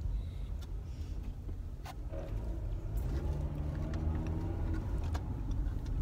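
Steady low rumble of road and engine noise inside a moving car's cabin, with a few faint clicks.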